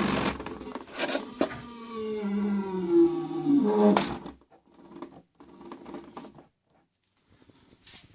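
Direct-drive washing machine brushless DC motor, driven by a 36 V controller, whining as it winds down, its pitch falling over a few seconds. Sharp clicks come about a second in and again near the end of the wind-down, then only faint scattered noise is left.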